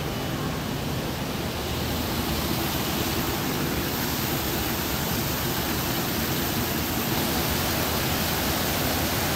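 Steady rush of water falling and splashing into a garden fish pond.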